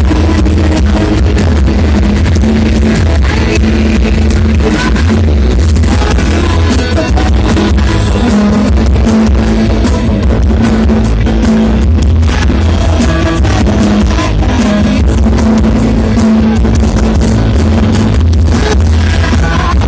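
Loud music with heavy bass and guitar, played over a large sound system.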